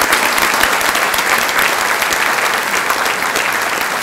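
A large audience applauding steadily, a dense patter of many hands clapping.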